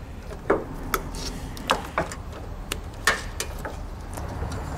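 Small wires and connectors being handled and fitted by hand during a wiring splice: a run of light, irregular clicks and ticks with faint rustling.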